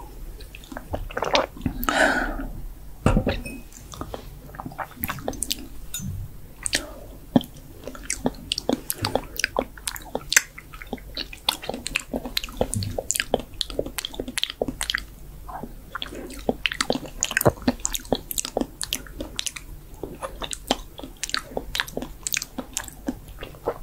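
Close-miked wet mouth sounds for ASMR: chewing, smacking and lip clicks in a rapid, irregular series. There is a breathier sound about two seconds in and a low thump about a second later.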